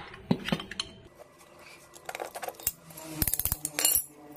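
Small metallic clinks and taps from steel parts of a welded swing arm being handled, with a quick run of clicks about three seconds in and a louder clink just before the end.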